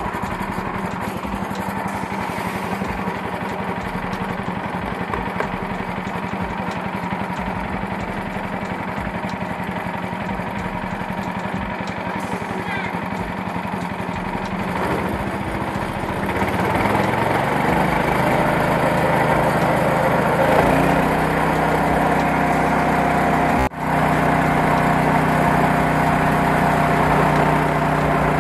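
Engine-driven KD 500 WG mini rice mill running steadily with a regular low pulse. About fifteen seconds in its pitch rises and it gets louder, then it runs on steadily under load as it mills the paddy.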